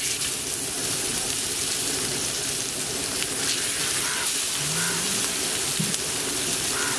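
Marinated fish steaks frying in shallow oil on a hot flat tawa griddle: a steady, dense sizzle.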